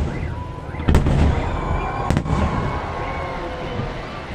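Fireworks salvo: shells bursting with two loud bangs, about a second in and again about a second later, over a continuous rumble and crackle of further bursts.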